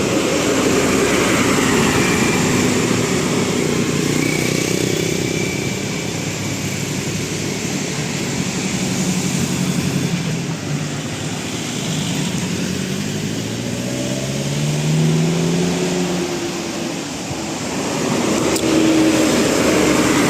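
Motor vehicles passing on a road, with an engine rising in pitch as it accelerates about two-thirds of the way through.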